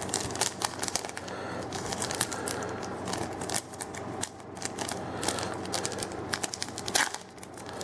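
Foil Yu-Gi-Oh booster pack wrapper crinkling and tearing as it is worked open by hand, a dense run of small crackles.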